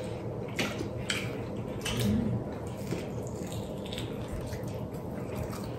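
Quiet sounds of a meal: a few light clicks of forks and knives against plates, with chewing, over a steady low room hum.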